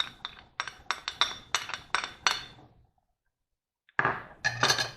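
Quick run of about ten light clinks of a utensil against a small saucepan as crushed garlic is tipped into the boiling water, then after a short pause a second, denser clatter near the end.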